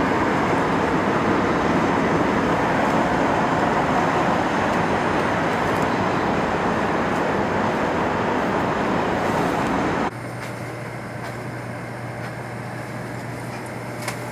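Cabin noise inside a Taiwan High Speed Rail train running at speed: a loud, steady rush. About ten seconds in it cuts to a much quieter cabin with a steady low hum as the train moves slowly past a station platform.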